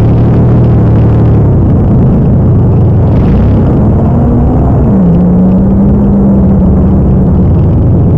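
Off-road truck engine running loud in a mud bog. Its pitch climbs about three seconds in, drops suddenly around the five-second mark, then holds steady.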